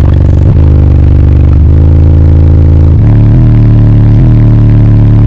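Four 15-inch Ascendant Audio Mayhem subwoofers playing a bass track at very high level: a run of deep sustained bass notes that change pitch every second or so.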